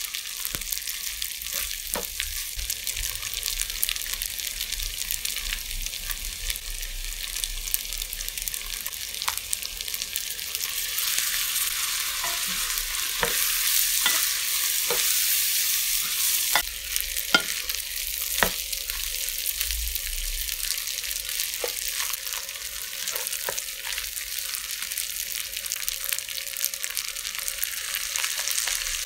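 Fried rice with chicken and egg sizzling in a hot wok as it is stir-fried with a wooden spatula, with scattered sharp clicks and knocks of the spatula against the pan. The sizzle grows louder for a few seconds around the middle.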